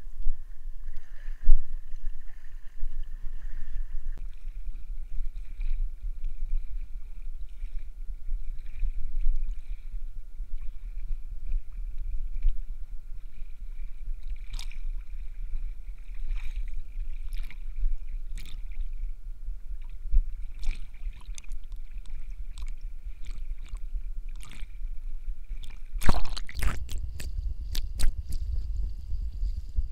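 Water sloshing and splashing as a person wades across a tidal river channel, over a steady low rumble, with scattered knocks. A louder burst of noise comes near the end.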